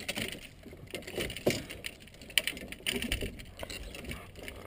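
Scattered clicks, knocks and rustling of fishing gear being handled in a van's rear cargo area. There are sharper knocks about a second and a half in and near the middle.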